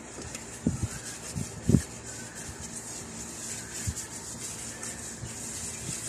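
A hand rubbing coconut oil around the inside of an unglazed clay cooking pot: a soft, steady rubbing hiss, with a few low knocks against the pot, the loudest about two seconds in.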